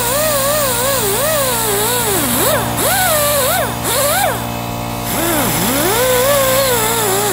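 Straight die grinder with an abrasive disc cleaning a metal mounting surface on an engine. Its whine keeps wandering up and down in pitch and drops sharply twice, about two and five and a half seconds in.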